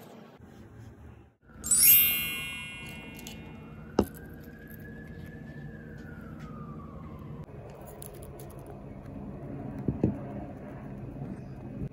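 A bright, ringing sparkle chime about two seconds in, fading away, with a tone that slides up and back down beneath it for several seconds. Later comes a single sharp click, and near the end a few light knocks from the popsicle-stick swing as the hamster sits on it.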